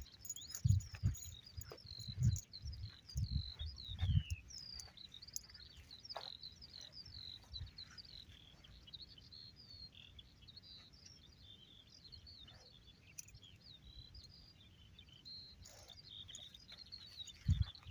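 Songbirds singing continuously, a dense stream of high chirps and quick warbling notes, with a few low thumps in the first four seconds and again near the end.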